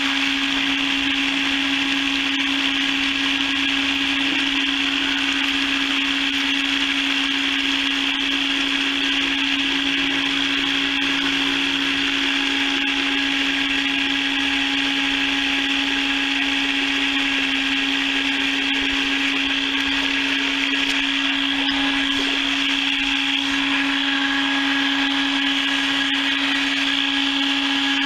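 Motor of a mechanical chicken plucker running steadily: a constant electric hum with one strong low tone and a dense whirring hiss above it, unchanging throughout.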